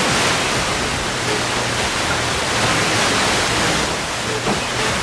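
Loud, steady hiss of static from a faulty microphone, covering the whole audio track.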